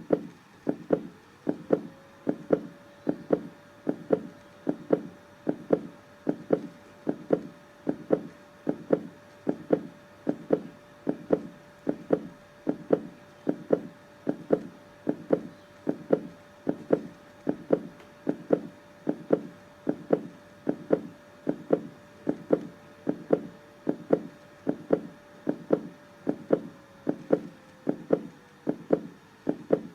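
Heartbeat sound: a steady rhythm of paired low thumps, lub-dub, repeating evenly.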